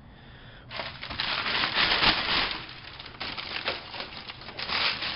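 Packaging being handled and unwrapped: crinkling and rustling in uneven bursts, starting about a second in and loudest about two seconds in.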